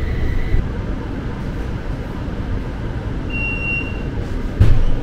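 Utsunomiya Light Rail tram running, heard from inside the car as a steady low rumble. A high steady tone cuts off just after the start, a short high beep sounds about three seconds in, and there is a sharp thump near the end.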